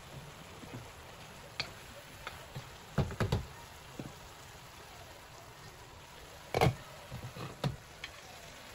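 Faint, steady crackle of stir-fried squash and bok choy still sizzling in a hot wok, broken by several sharp knocks and thumps of handling. There is a cluster of knocks about three seconds in, and the loudest comes about two-thirds of the way through.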